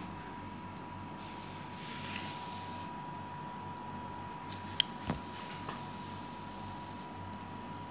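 Carboxytherapy machine running during a CO2 injection under the skin: a steady high tone, with a faint gas hiss that comes and goes twice. A couple of faint clicks come about five seconds in.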